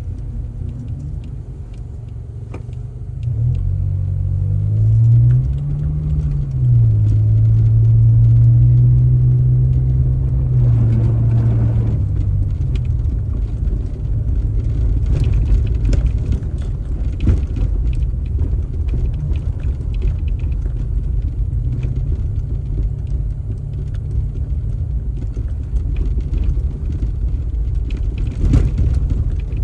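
A motor vehicle running under a steady low rumble. Its engine pitch climbs and dips a few seconds in, holds for several seconds, then falls back about twelve seconds in.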